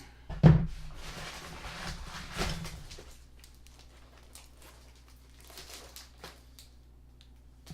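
A knock about half a second in, then rustling and scattered light clicks as things are handled and moved aside, growing quieter after about three seconds.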